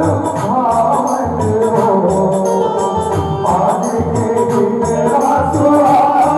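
Bhajan music: a held, reed-organ-like melody over a steady hand-drum beat with jingling percussion.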